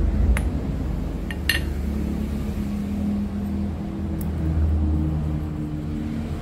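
Small steel parts clinking against a milling machine's steel rotary table as they are handled: a few sharp, ringing clinks within the first second and a half. A steady low motor hum runs underneath.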